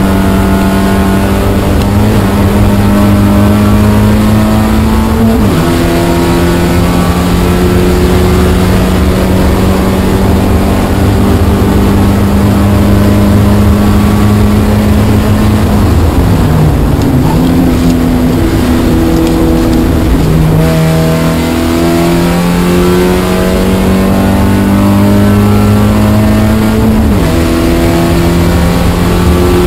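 Spec Miata's four-cylinder engine heard from inside the cockpit under hard acceleration, its note climbing steadily and dropping sharply at an upshift about five seconds in and again near the end. Around the middle the note dips and wavers as the car slows for a corner, then climbs again.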